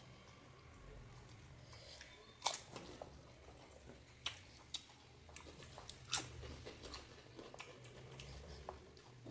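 Crisp panipuri shells crunching as they are bitten and chewed, with a few sharp cracks about two and a half, four and six seconds in among smaller crunches.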